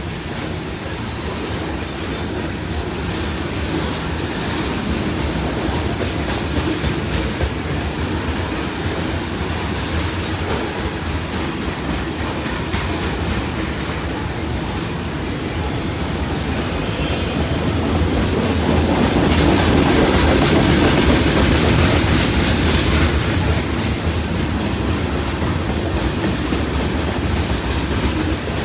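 Long freight train's cars rolling past on the rails: a steady rumble with wheels clicking over the rail joints, swelling louder for a few seconds about two-thirds of the way in.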